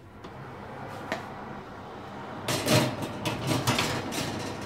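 Built-in electric oven opened, with a steady low hum and a click about a second in. From about halfway, a run of sharp metallic scrapes and rattles as a metal baking tray is slid out over the oven rack.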